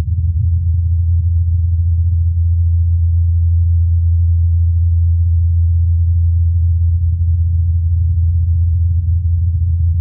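The rotor blades of NASA's Ingenuity Mars helicopter in flight, a steady low hum of about 84 Hz with a few fainter overtones above it, picked up by Perseverance's microphone through the thin Martian air.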